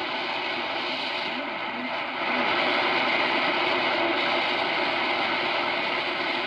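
Tecsun H-501X shortwave receiver in AM mode being tuned up through the 49-metre broadcast band: a steady wash of static and noise between stations, getting louder about two seconds in.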